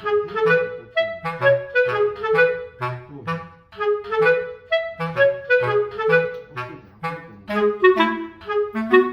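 Background music: a bouncy melody of short, separate notes over a bass line, in a woodwind-like tone.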